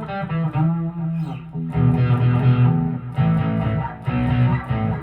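Chapman ML3 Pro Modern electric guitar: a chord rings from the start, then from about two seconds in, chords are struck roughly once a second and left to sustain.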